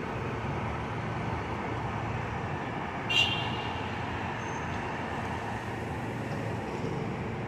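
Steady rumble of city traffic, with a brief high-pitched squeak about three seconds in.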